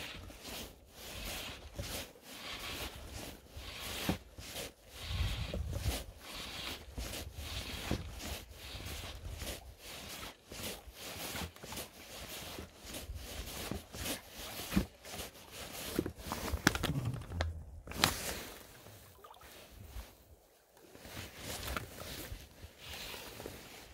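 Fly line being stripped in by hand through the rod guides and gloved fingers during a fly-fishing retrieve: repeated short rasping pulls, about one or two a second, with a low rumble now and then.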